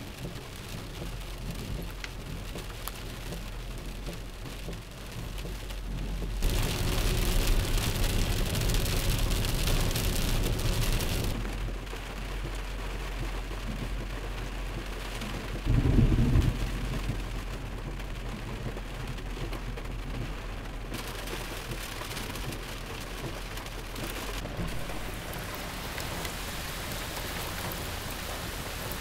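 Heavy rain pouring down steadily, growing louder for about five seconds in the first half. A brief low thump stands out about halfway through.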